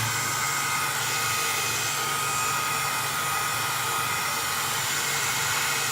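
Electric hot-air blower running steadily, a rush of air with a thin steady whine, heating a PlayStation 3 motherboard to fix the red light of death.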